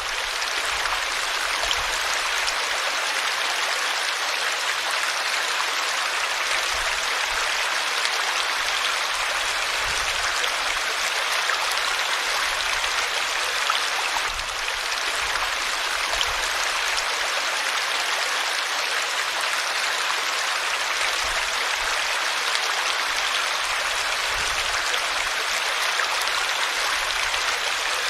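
A river or stream flowing over rocks: a steady rushing and babbling of water.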